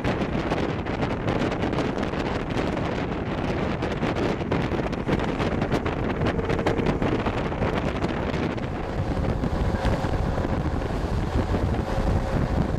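Wind buffeting the microphone aboard a moving Yaroslavets-type motor boat, over the rush of water and the boat's engine. A faint steady hum comes through about two-thirds of the way in.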